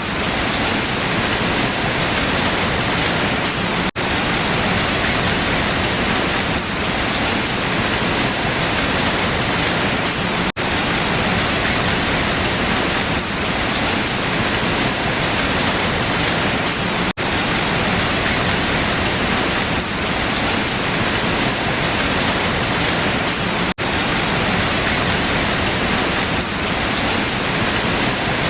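Steady, even rain falling on leaves, a continuous hiss of drops with no pause in intensity. It is cut by very brief dropouts about every six and a half seconds.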